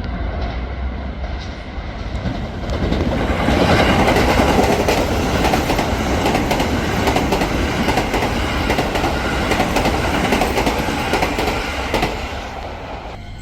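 Keio Line electric train passing close by, its wheels clattering over the rail joints. The sound swells about three seconds in and falls away sharply just before the end.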